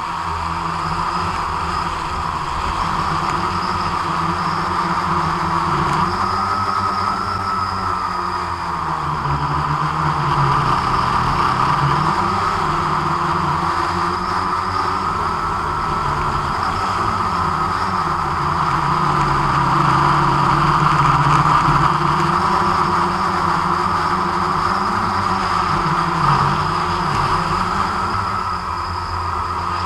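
Quadcopter drone's electric motors and propellers humming steadily, the pitch wavering a little as the motor speeds change in flight.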